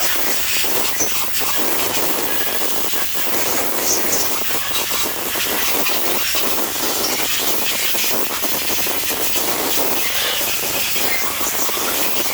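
Compressed-air blow gun hissing loudly as it blows water and debris out of the holes of a freshly washed Mopar 360 cast cylinder head to dry it. The blast wavers in strength throughout.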